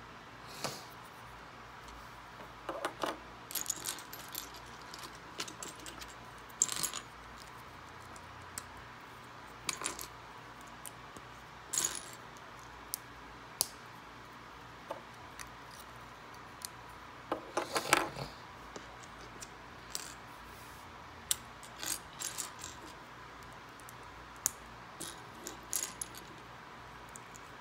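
Plastic Lego pieces clicking and clattering as they are sorted through in a loose pile on a wooden tabletop and pressed together: scattered sharp clicks, some in quick little clusters, the loudest a bit past the middle.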